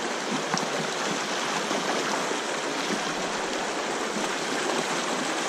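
Mountain creek rushing steadily over rocks in a shallow riffle.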